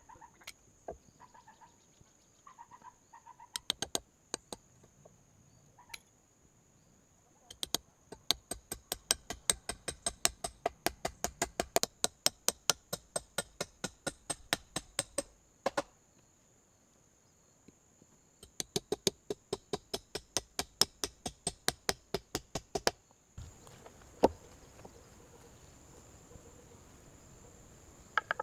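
Quick, sharp strokes of hand-tool work in two long runs of about four strokes a second, over a steady high insect trill.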